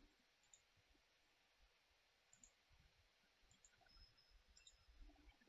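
Near silence: room tone with a few faint, scattered clicks from a computer mouse.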